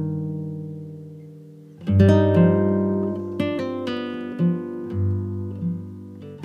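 Relaxing instrumental background music of plucked strings: a chord rings out and fades, then a fresh chord is struck about two seconds in, followed by single notes.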